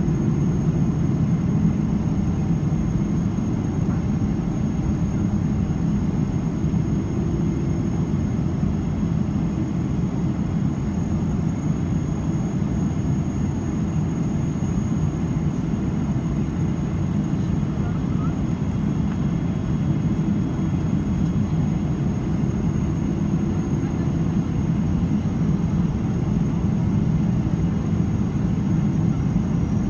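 Steady cabin noise of a Boeing 777-300ER in flight, heard from a window seat beside the wing: the deep, even drone of its GE90 engines and the rush of airflow, with a faint high whine held steady over it.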